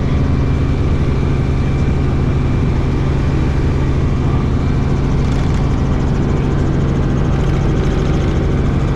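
Tour helicopter heard from inside the cabin: steady, loud engine and rotor noise with a constant low hum.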